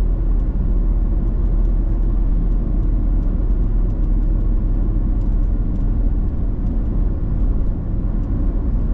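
Ford Super Duty pickup driving, heard from inside the cab: a steady low rumble of engine and road noise, with faint scattered ticks over it.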